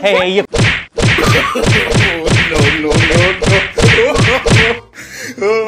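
Slapstick beating: a fast run of about a dozen whacking hits, roughly three a second, each followed by a short falling tone.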